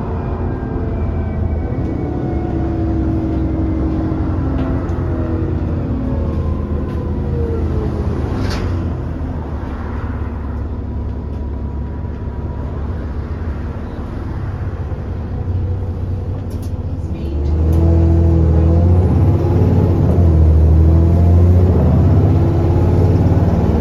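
Bus engine and drivetrain heard from inside the saloon. The engine note falls as the revs drop over the first several seconds, then holds steady. About two-thirds of the way through it turns suddenly louder, with a deeper rumble and rising pitch as the bus accelerates hard, fitting a kickdown.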